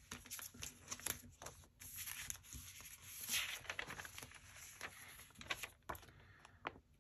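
Sticker sheets and planner pages rustling and crinkling as they are handled and turned, faint, with many small clicks and a longer rustle about three seconds in.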